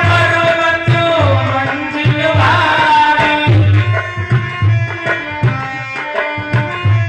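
Indian devotional music: a tabla-style hand-drum beat under steady held notes, with a gliding, ornamented melody line over the first half that then gives way to the drum and held notes.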